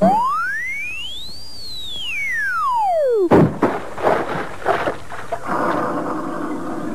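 A cartoon sound-effect whistle glides up and back down in one smooth arc over about three seconds, the classic sound of a character flying through the air. It cuts off abruptly in a crash of knocks and a splash of water.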